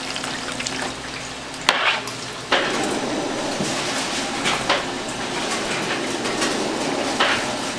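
Battered fish cakes sizzling steadily in the hot oil of an automatic fryer, the sizzle growing louder about two and a half seconds in, with a few sharp clicks and clinks of metal.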